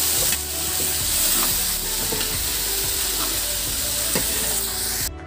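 Tempeh and green beans sizzling as they are stir-fried in a wok, stirred with a metal spatula that scrapes and clicks against the pan now and then. The sizzle cuts off suddenly near the end.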